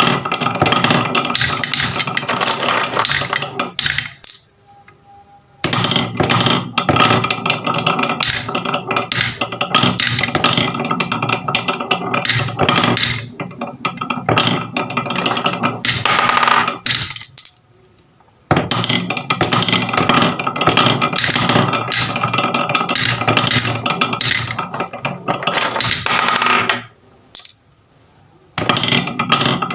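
Many marbles rolling and clattering down a wooden HABA marble run, a dense stream of clicks and rattles. It stops briefly three times, about four seconds in, after seventeen seconds and near the end.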